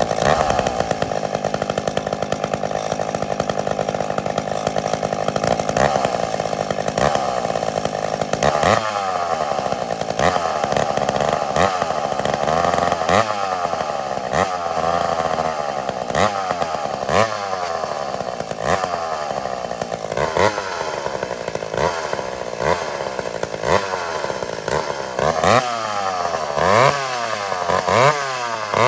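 McCulloch Super Pro 81 two-stroke chainsaw running. It runs at a steady speed for about eight seconds, then is revved in short throttle blips about once a second.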